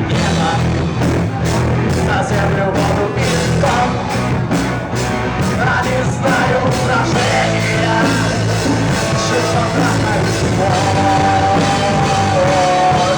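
Rock band playing live: distorted electric guitars, bass and drum kit, with held singing or guitar melody over them.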